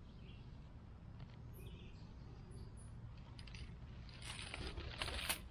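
Grass and leaves rustling as a hand reaches in to pick wild blackberries, with a louder burst of rustling about four seconds in that lasts about a second. Faint chirps are heard in the background.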